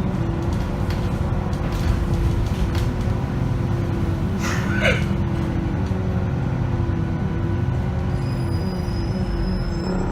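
Inside an Alexander Dennis Enviro 500MMC double-deck bus on the move: a steady low drivetrain rumble with a faint whining tone that steps up and down in pitch, and a brief squeal about four and a half seconds in. These are the bus's weird sounds, which the uploader thinks its onboard speaker may add to.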